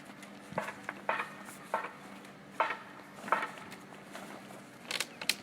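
A series of light, irregular knocks and clacks, like hard objects being handled. Two sharper clicks come near the end, over a faint steady hum.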